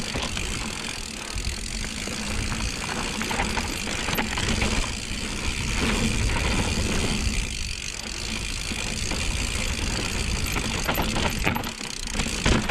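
Mountain bike rolling down a steep dirt singletrack: knobby tyres crunching over dirt and roots, the frame and parts rattling, and the rear hub's freewheel ratchet clicking while the rider coasts without pedalling. A low rumble from the rough ground sits under it.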